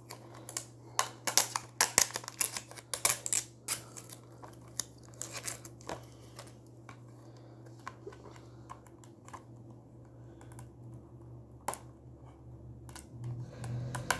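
Fingernails picking, clicking and tapping at a plastic Blu-ray case while working at the sticky seal that keeps it shut. A quick, irregular run of clicks for the first several seconds, then only an odd tap.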